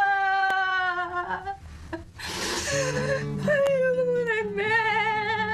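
A woman's high, drawn-out wail that sinks slightly and breaks off after about a second and a half, a short breathy hiss, then a lower, wavering moan over low held music notes.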